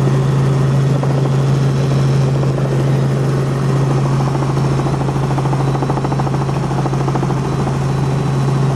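Light helicopter in flight, heard from inside the cockpit: a steady drone of engine and rotor with a constant deep hum.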